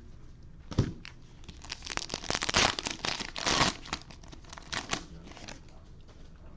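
Cellophane wrapper of a Panini Prizm football cello pack being torn open and crinkled by hand, a dense crackling run of a couple of seconds with a few smaller crinkles after.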